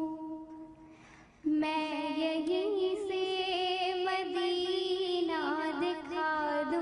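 Solo voice singing an Urdu naat without accompaniment: a long held note fades away, then about a second and a half in the voice comes back abruptly on a new held note, sung with ornamented turns and a wavering vibrato near the end.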